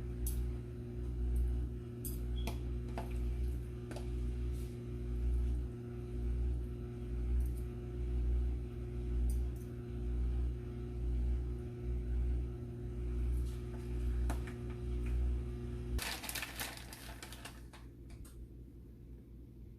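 A steady machine hum with a low pulsing about once a second and a few light clicks, cutting off abruptly with a short rustle about sixteen seconds in.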